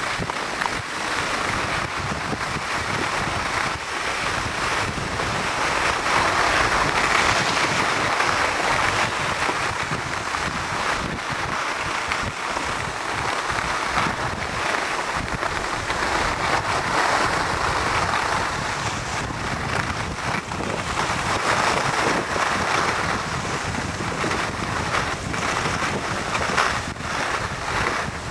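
Continuous rushing hiss of skis sliding over snow, mixed with wind buffeting the microphone, swelling louder twice.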